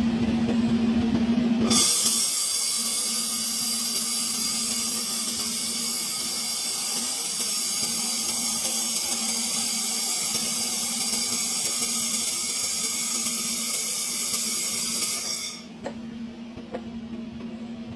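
Stick-welding arc hissing and crackling steadily, starting about two seconds in and cutting off sharply near the end as the arc is broken. A steady low hum runs underneath.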